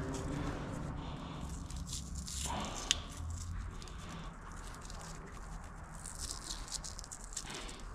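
Hands working an engine wiring harness and its braided sleeving: irregular rustling and scraping of wires and sleeve, with one sharp click about three seconds in.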